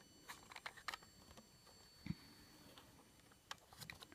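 Near silence: quiet room tone broken by a few faint, scattered light clicks and taps, with a soft low tap about two seconds in.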